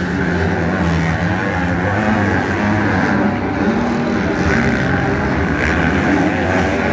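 Several motocross motorcycle engines revving hard out on the track, a dense continuous drone whose pitch keeps rising and falling as the riders work the throttle and shift.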